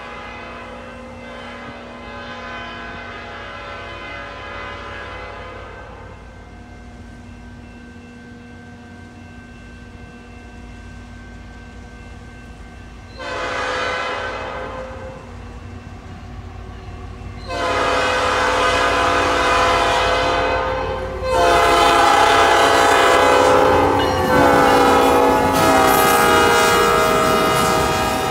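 Approaching diesel freight train sounding its multi-tone locomotive horn in a series of blasts that grow louder as it nears: a fainter long blast at first, a short one about 13 s in, then long loud blasts from about 17 s on. Near the end the passing locomotives' engines and wheels add a low rumble under the horn.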